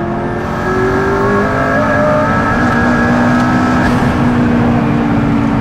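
Hypercar engine pulling under acceleration, heard from inside the cabin. Its note climbs over the first second or so, then holds a steady high pitch.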